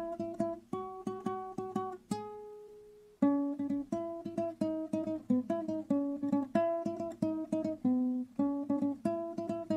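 Background music: a plucked string instrument picking a steady run of notes. About two seconds in, the picking pauses on one note that rings out and fades, then resumes.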